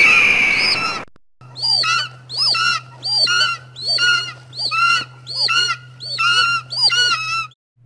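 Cheap film sound effect of attacking birds: a loud screech for about the first second, then the same short squawking bird call looped about nine times, roughly three every two seconds, over a low steady hum.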